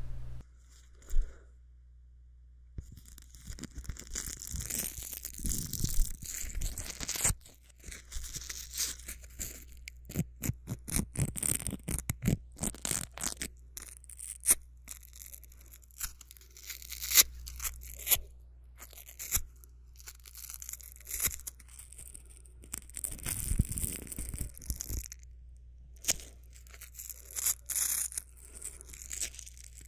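Velcro being ripped apart again and again in short crackling bursts, with brief pauses between.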